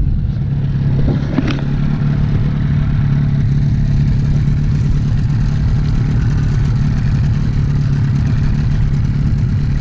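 Boat motor running steadily with a constant low hum.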